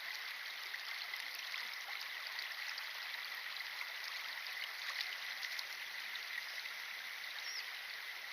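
Steady hiss of running water, even throughout, with a faint continuous high tone running through it and a few light ticks.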